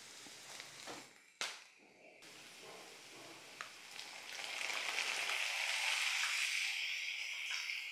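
Chopped tomatoes going into a frying pan of hot oil with fried garlic and onion. Quiet at first with a single knock a little over a second in, then a steady sizzle rises about halfway through and holds.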